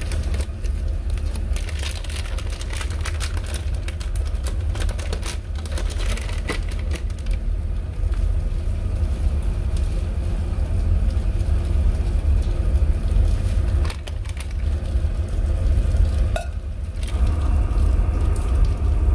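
Rainwater dripping and crackling onto plastic in irregular clicks, over a steady low rumble.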